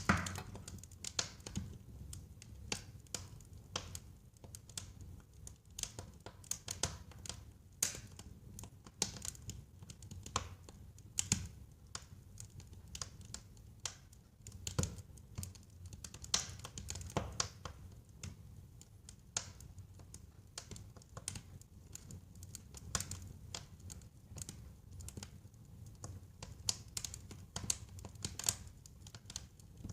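Wood fire burning in a fireplace: irregular sharp crackles and pops, several a second at times, over a low steady rumble of the flames.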